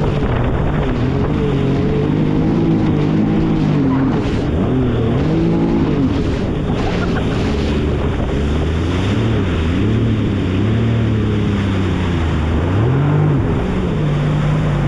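Motor watercraft engine running on the water, its pitch rising and falling repeatedly as the throttle is worked, with wind buffeting the microphone.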